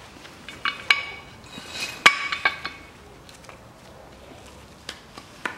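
Metal clinks and rattles from a Land Rover Discovery 3 spare-wheel winch as its steel cable is wound by hand onto the greased spool, with two louder ringing clinks about one and two seconds in.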